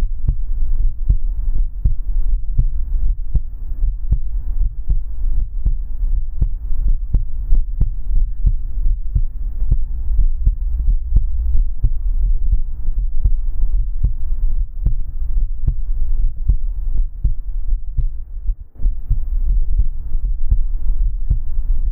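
Amplified heartbeat, beating steadily as a run of low, muffled thumps over a constant low hum.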